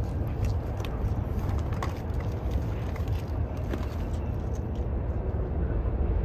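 Steady low outdoor rumble, with a few faint light clicks of gear being handled.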